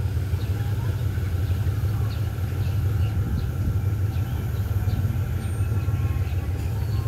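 Steady low rumble of a diesel locomotive idling while its passenger train stands at the station.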